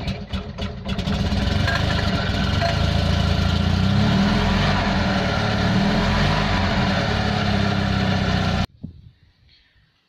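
Cold start of an Invacar Model 70's Steyr-Puch air-cooled flat-twin engine: a few cranking strokes, catching about a second in and then running steadily. It cuts off abruptly near the end.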